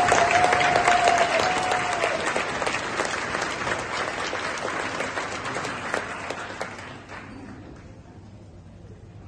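Audience applauding, with one long held tone over the clapping for about the first two seconds. The applause fades and dies away about seven seconds in, leaving the room much quieter.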